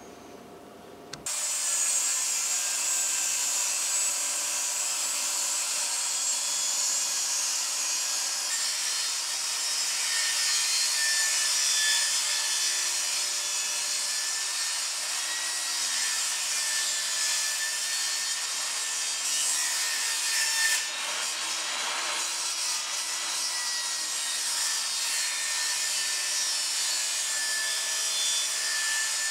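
Benchtop table saw running and ripping a board lengthwise into thin strips. It is a steady noise with a faint wavering whine, starting abruptly about a second in.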